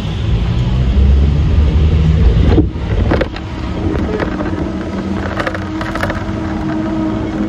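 Hong Kong double-decker tram running along its rails, heard from on board. A heavy low rumble drops off suddenly about two and a half seconds in, giving way to a steadier hum with a held tone and bursts of rattling.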